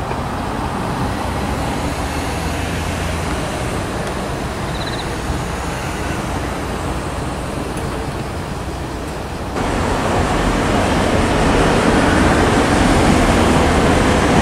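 Steady road-traffic noise beside a railway crossing. About ten seconds in, it cuts to a louder rumble that swells over the next couple of seconds as a train draws near.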